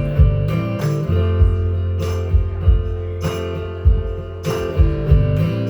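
Guitar strummed in a steady rhythm, with sustained chords and low bass notes underneath: an instrumental passage of a song between sung lines.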